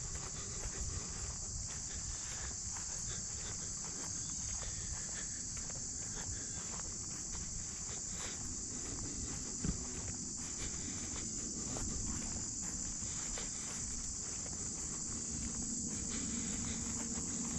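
A steady, high-pitched insect chorus, like crickets trilling, with faint footsteps on a trail underneath and a single tap near the middle.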